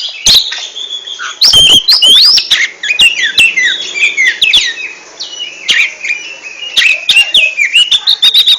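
Oriental magpie-robin (kacer) singing a fast, varied song of short whistled notes sliding up and down, with sharp clicks among them.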